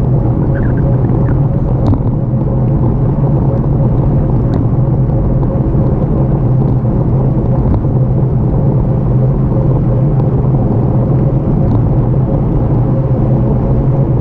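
Steady wind rumble on the microphone and tyre noise on rough asphalt from a bicycle riding along, with a steady low hum under it.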